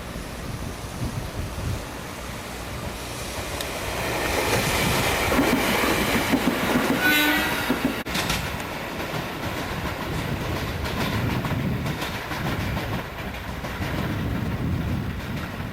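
Electric train running through the station: wheel and rail rumble grows louder over the first few seconds, then rumbles on with rail-joint clatter. A brief horn sounds about seven seconds in.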